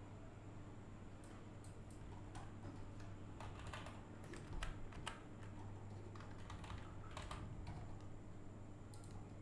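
Faint, irregular clicks of a computer keyboard and mouse, with a steady low hum beneath.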